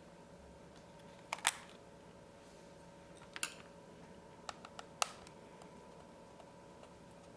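Scattered sharp clicks and taps of plastic and metal parts being handled inside an opened Dell Latitude E5440 laptop: a double click about a second and a half in, another near the middle, then three quick ones, over a faint steady hum.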